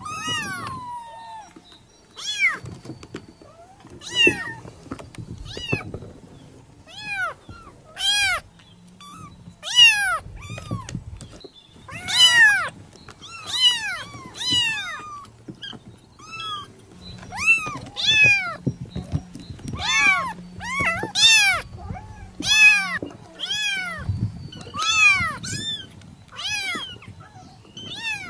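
Kittens mewing over and over: short, high-pitched meows, each rising and falling, coming roughly every second or two and sometimes several close together.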